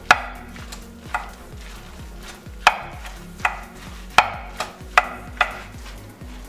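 Metal spoon stirring a wet mix of grated zucchini, dill and egg in a stainless steel bowl, clinking and scraping against the bowl about ten times at an irregular pace.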